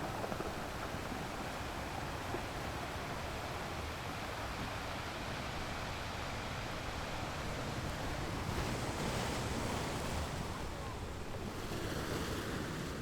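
Sea waves breaking on a rocky beach: a continuous rushing wash of surf, with a louder surge of breaking water about nine seconds in and another near the end.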